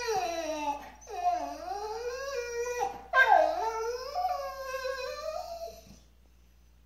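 A husky-mix dog 'talking': three long, drawn-out pitched vocalizations that rise and fall in pitch and stop about six seconds in. By his owner's reading, he is asking to go out to relieve himself.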